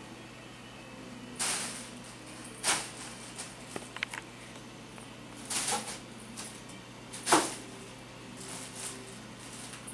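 Clear plastic bag crinkling and rustling in a series of short bursts as a kitten pounces and rolls in it, four of them louder than the rest.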